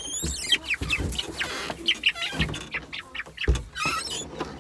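Chickens clucking and chirping in a flurry of short calls, with a few dull low thumps.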